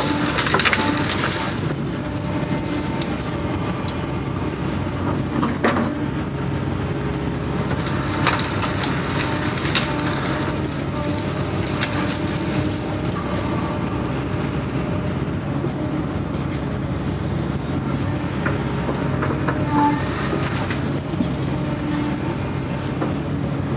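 Doosan excavator's diesel engine and hydraulics running steadily, heard from the cab, with several bouts of crackling and snapping as the bucket works through brush and branches in the ditch.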